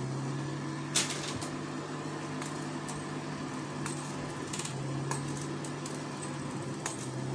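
A small knife slicing a raw eggplant into rounds over a steel bowl of water, heard as scattered soft clicks and taps as the blade cuts through and the slices drop in, over a steady low hum.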